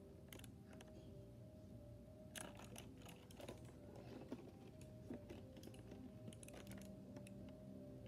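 Faint, scattered key presses on an RK61 60% mechanical keyboard with red switches: soft, irregular clicks, a few each second at most.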